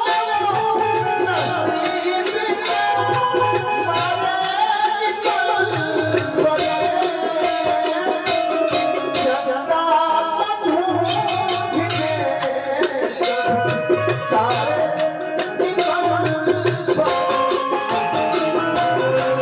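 Male vocalist singing a Bhojpuri dugola into a microphone over steady drum and rattling percussion accompaniment.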